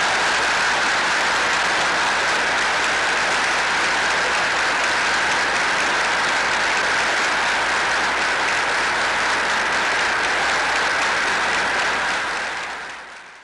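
Crowd applauding at the close of a speech, a steady, even clapping that fades out near the end.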